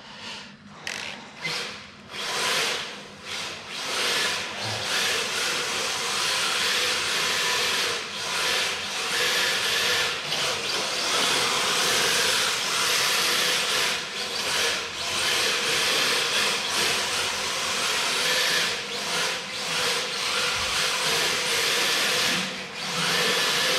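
MST radio-controlled drift car running on a tiled floor: its hard drift tyres hiss and scrub across the tiles as it slides, with the electric motor's faint whine beneath, swelling and easing every second or two with the throttle.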